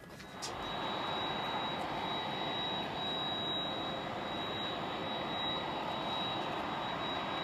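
Boeing 787-8 airliner's Rolls-Royce Trent 1000 jet engines running: a steady roar with a thin high whine over it, coming in abruptly about half a second in.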